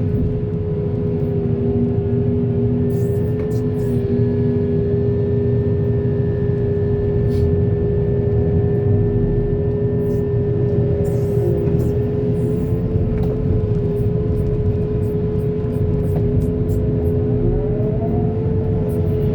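Heavy diesel machinery running steadily: a low engine rumble with a steady whine held over it.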